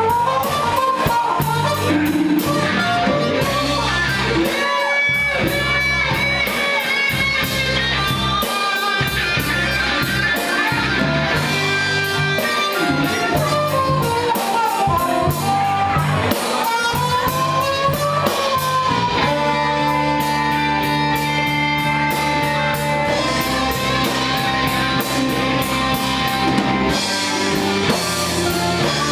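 Live blues band playing a slow blues: an electric guitar lead with sustained notes and string bends over bass and drum kit.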